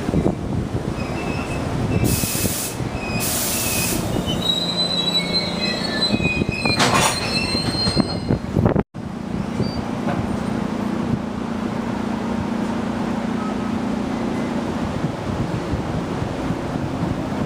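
A train passing over the rails: rumbling wheels with thin, high wheel squeal in the first half. A sudden brief dropout comes about nine seconds in, after which a steady rumble with a low hum goes on.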